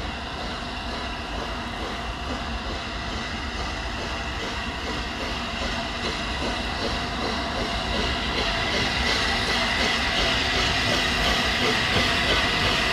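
The Flying Scotsman, an LNER A3 Pacific steam locomotive, approaching under steam with a steady beat of exhaust chuffs. It grows steadily louder as it nears, and a brighter hiss builds over the last few seconds.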